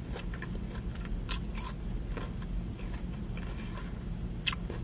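Close-up chewing of a crispy fried Korean cheese corn dog, with a few sharp crunches of the fried crust spread through. A low steady hum runs underneath.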